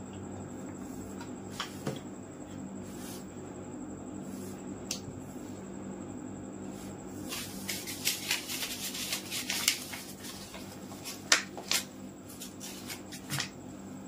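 Hands working small plastic parts: a stretch of rustling and scraping about seven to ten seconds in, then a few sharp clicks, over a steady low hum.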